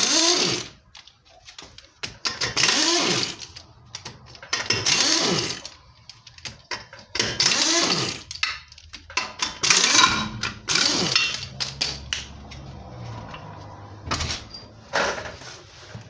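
Impact wrench run in about five short bursts of roughly a second each, hammering the car's wheel nuts loose one after another. A few short knocks follow near the end.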